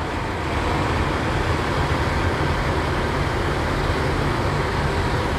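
Diesel engine of a Kenworth semi truck idling: a steady low rumble.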